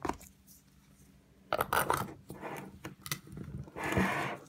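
Rustling and rubbing handling noise of gloved hands working with a plastic container close to the microphone, in a few short bursts with a longer one near the end.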